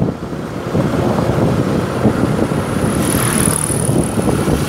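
Wind rushing and buffeting over the microphone of a moving motorcycle, with the bike's running and road noise underneath.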